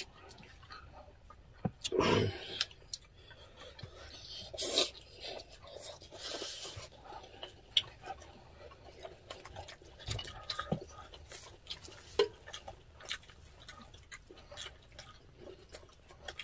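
Close-miked eating sounds: chewing and wet mouth noises, with scattered light clicks of chopsticks and spoons against glass bowls. A short louder sound comes about two seconds in.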